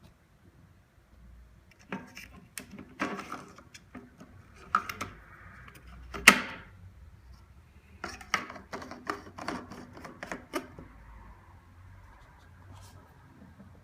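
Irregular clicks and knocks in scattered clusters, the loudest a single sharp knock about six seconds in, with a quick run of clicks a little after.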